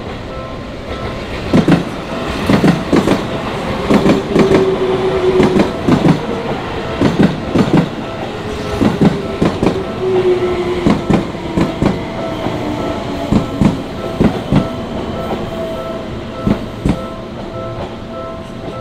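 A Japanese level-crossing alarm rings on and on in a steady repeating tone while a Seibu electric commuter train passes over the crossing. The train's wheels clack in quick pairs over the rail joints, and a motor whine falls in pitch as the train slows.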